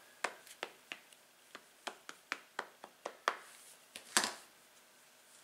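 A Memento ink pad dabbed repeatedly against a clear stamp on an acrylic block: a string of light plastic taps, about three a second, then a single louder knock about four seconds in.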